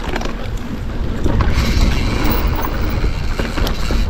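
Mountain bike ridden along a dirt trail, heard from a chest-mounted GoPro: a steady deep rumble of wind on the microphone and tyres on the ground, with scattered clicks and rattles from the bike.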